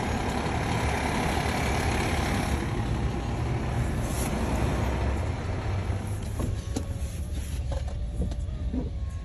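Fire engine's diesel engine running close by, a steady low rumble heard from inside a car; it grows quieter about six seconds in.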